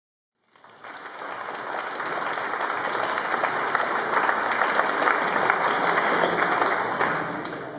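Audience applauding. It starts about half a second in, swells over the next second, holds steady and eases off near the end.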